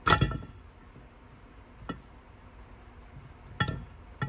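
Metal clinks with a short ring from the camshaft being worked out of a stripped BMC A-Series 1275 cast-iron engine block: a loud one at the start, a faint one about two seconds in and another near the end.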